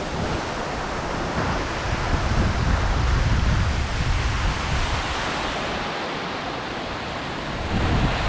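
An 85 m plunge waterfall pouring in a steady, even rush of falling water. Wind buffets the microphone in low gusts about two seconds in and again near the end.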